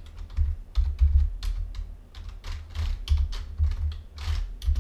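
Computer keyboard typing: an uneven run of keystrokes, each with a dull thud beneath it, as a web address is typed.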